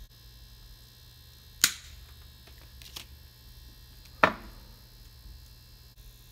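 Two sharp clicks about two and a half seconds apart, with a softer one between them, as supercapacitors and hand tools are handled on a workbench during soldering, over a faint low hum.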